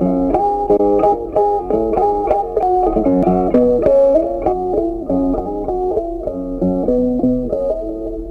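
Background music: a plucked guitar tune with a bass line, one note after another at a lively pace.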